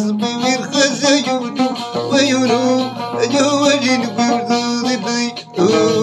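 Moroccan outar, a plucked lute, playing a continuous run of notes. The music breaks off briefly about five and a half seconds in, then a new phrase begins.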